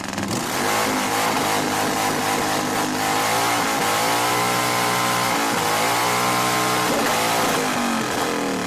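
An engine revving hard and held at high revs, its pitch rising and falling, dropping back briefly about five seconds in before climbing again.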